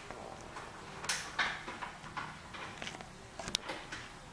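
A dog panting in soft, irregular breaths, with a couple of sharp clicks late on.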